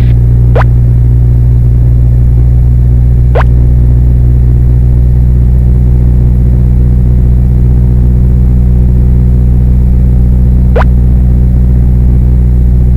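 A light aircraft's piston engine running steadily on the ground, heard from inside the cockpit, with three brief sharp clicks.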